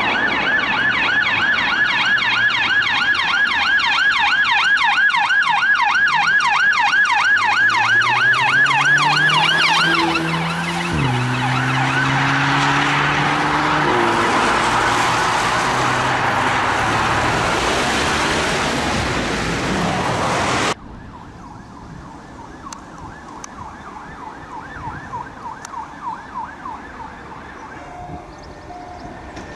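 Police car sirens: a rapid yelp siren sweeping up and down, with a car engine revving hard and changing gear near the middle. After about ten seconds the siren turns harsher and noisier. About two-thirds in, the sound drops sharply to quieter traffic with a fainter yelp siren.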